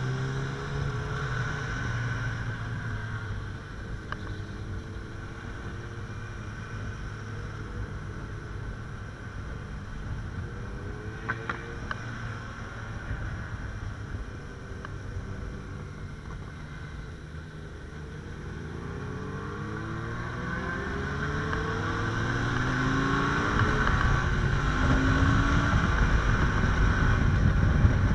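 Suzuki V-Strom 650 XT's V-twin engine under way, its pitch rising again and again as it pulls up through the gears. Wind buffeting on the helmet microphone grows louder over the last third as the speed builds.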